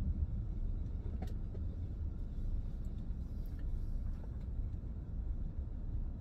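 Steady low rumble with a few faint clicks, the clearest about a second in.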